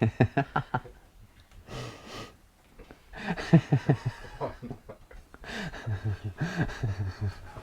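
Laughing and chuckling: a quick run of laughs at the start, a breath about two seconds in, then more soft chuckles and short vocal sounds.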